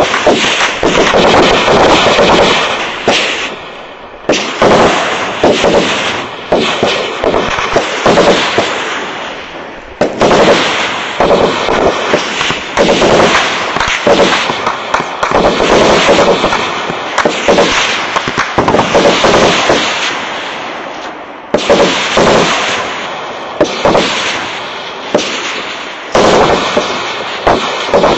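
Sustained heavy gunfire: many rapid shots packed into long, dense runs, with brief lulls about four, ten and twenty-one seconds in.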